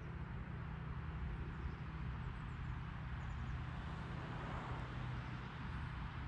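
Steady rolling rumble of a recumbent trike's tyres on the road, with a few faint high chirps now and then.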